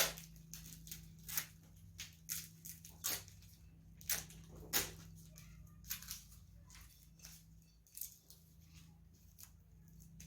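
Masking tape being peeled off freshly painted parts: a string of short, irregular rips and crackles over a steady low hum.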